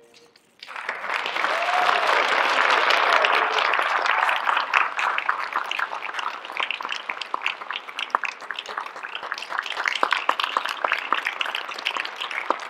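Audience breaking into applause about a second in, swelling to its fullest over the next few seconds, then going on as thinner clapping with single claps standing out.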